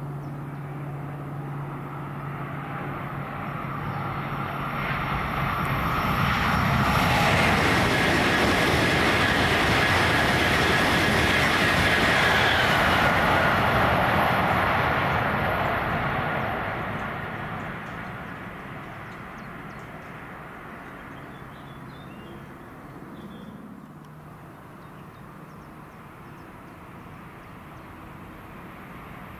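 Eurostar Class 374 (e320 Velaro) high-speed electric train passing at speed: the rush of wheels and air builds over several seconds, stays at its loudest for about eight seconds with a steady high tone, then fades away. Near the end a second train, a Southeastern Class 395 Javelin, begins to be heard approaching.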